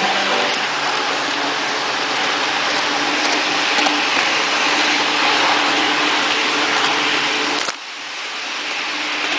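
Garden-railway model train running at speed, heard from a camera riding on its roof: a steady rushing running noise with a faint hum. Near the end a sharp click comes, the sound drops suddenly, then builds back up.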